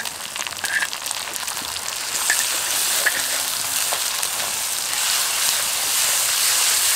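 Sliced onions and ground spice pastes sizzling in hot mustard oil in an aluminium kadai while a spatula stirs them. The sizzle grows louder about two seconds in.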